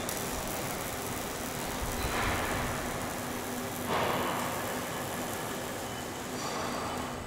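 Car body-shop factory noise from robotic welding cells: a steady machine hum under a constant wash of noise, with two louder rushes of noise about two and four seconds in.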